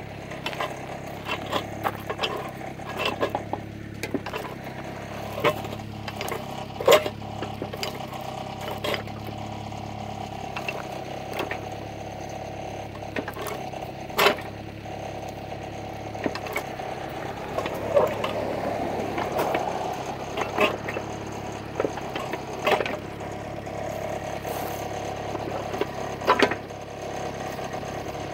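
Kubota KX121-3 mini excavator's diesel engine idling steadily. Irregular sharp clicks and crunches sound over it, the loudest about 7 and 14 seconds in.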